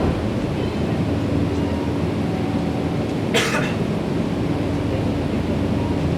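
Nankai 7100-series electric train standing at a station platform with its doors open: a steady hum of its onboard equipment. A single short cough sounds about three seconds in.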